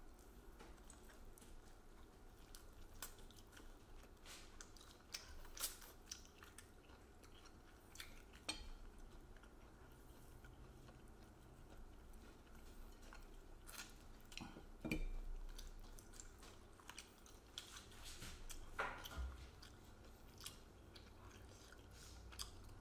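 Close-up chewing and biting into fried chicken wings, quiet, with scattered small crunches and clicks and a dull knock about two thirds of the way through.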